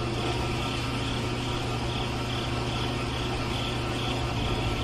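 Small electric motor of a toy concrete mixer running steadily, turning the mixer drum: a constant hum with a faint regular pulse about two or three times a second.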